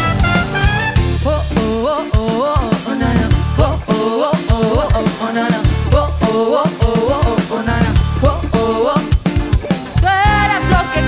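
Band music: drum kit and bass under a sliding, bending lead melody, with no sung words.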